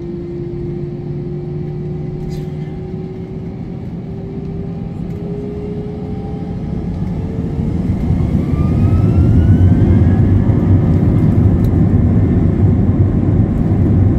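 Airbus A321's jet engines heard from inside the cabin, spooling up for takeoff: a slowly rising whine. About eight seconds in the rumble grows much louder and stays loud as the aircraft accelerates down the runway.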